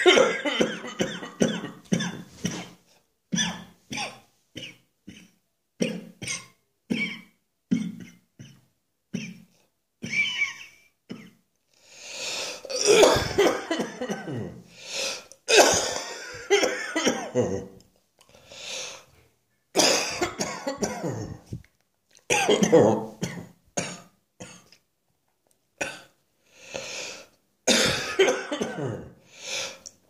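A person's long morning coughing fit: a quick run of short coughs for the first ten seconds or so, then longer, louder bouts of coughing with brief pauses between them.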